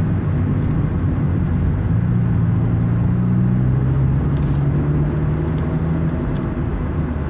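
Honda Fit Hybrid's petrol engine pulling uphill through an aftermarket Kakimoto muffler, with road noise under it; the engine note rises a little about two seconds in, holds, then falls away near the end.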